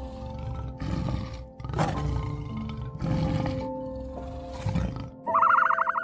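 Tiger roaring in four rough roars about a second apart, over background music. About five seconds in, a high, rapidly trilling call takes over.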